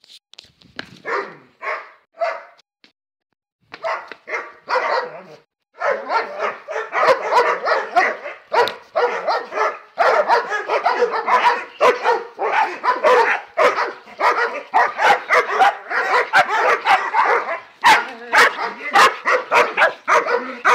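Dogs barking: a few separate barks with a short break, then from about six seconds in, rapid overlapping barking that keeps going.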